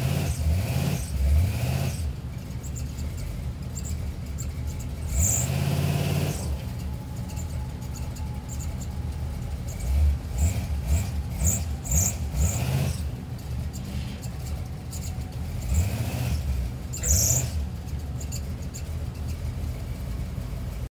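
Old square-body truck's engine idling, blipped up in several short revs that rise and fall in pitch. Brief high squeaks come with some of the revs.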